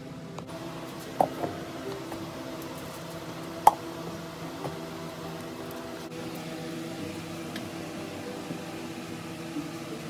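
Soft background music of sustained, slowly shifting tones, with a few sharp clicks or knocks; the loudest click comes just under four seconds in.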